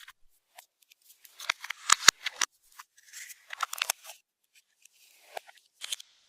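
Slime being worked by hand, making clusters of sharp sticky clicks and pops with short pauses between.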